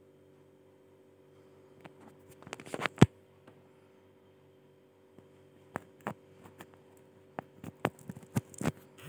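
Scattered clicks and taps with a brief rustle, the loudest a sharp click about three seconds in, over a steady low hum.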